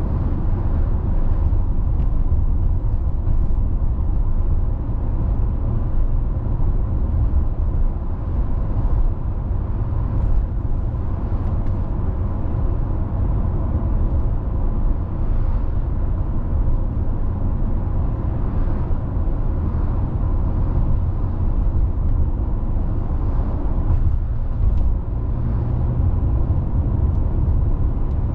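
Car driving at a steady pace: continuous road and tyre rumble with engine noise, heavy in the low end and unchanging.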